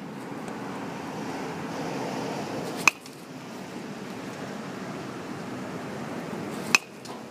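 Baseball bat hitting pitched balls: two sharp cracks, about four seconds apart.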